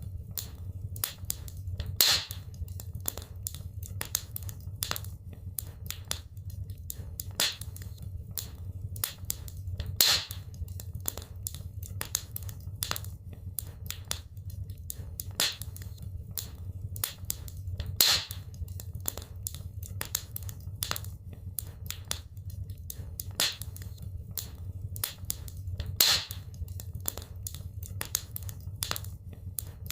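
Wood fire in a fireplace crackling steadily over a low rumble, with a louder pop about every eight seconds.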